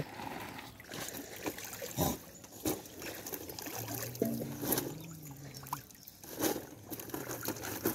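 Water splashing and sloshing as a crowd of silver carp and other carp thrash in the shallow water of a seine net, with several sharp splashes spread through. A faint voice is heard near the middle.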